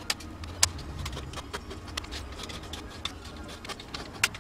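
Irregular sharp taps and clicks from a small hand tool and a plastic fibre spacer sheet being worked on an OSB tabletop, about half a dozen over a few seconds, over a low steady hum.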